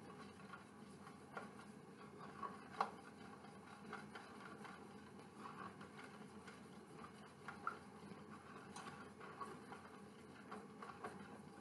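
Wire whisk stirring a thin egg-and-lemon mixture in a stainless steel saucepan: faint, irregular clicks and taps of the whisk against the metal pan, one sharper tap about three seconds in.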